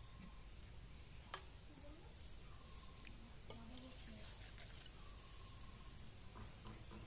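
Steel ladle stirring and scooping curry in a metal kadai, with one sharp clink of metal on metal about a second in and a few fainter knocks. Faint high chirps repeat every half second or so throughout.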